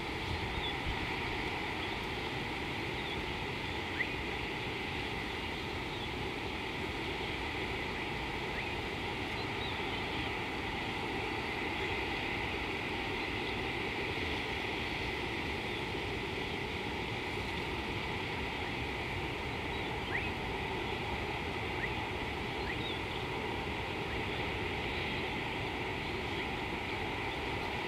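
Steady outdoor background hiss of bush and river, with a few faint, short bird chirps scattered through it.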